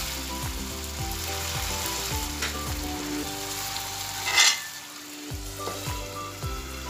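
Diced cucumber sizzling steadily as it simmers in khar, the Assamese alkaline cooking liquid, in a kadai, with a short loud clatter about four seconds in as an aluminium lid goes on the pan. Background music with a steady beat plays under it.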